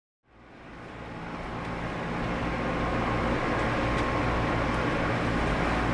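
A steady mechanical hum with a low drone and a hiss, fading in over the first two seconds and then holding steady.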